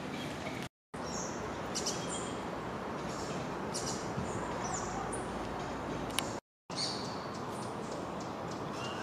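Scattered high-pitched chirps and short whistled calls over a steady background hiss. The sound drops out to silence twice, briefly.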